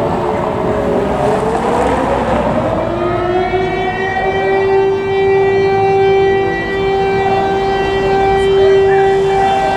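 Outdoor siren sounding the fire-brigade alarm that calls out volunteer firefighters. Its wailing tone sinks in pitch over the first second or so, then climbs back between about three and four seconds in and holds steady.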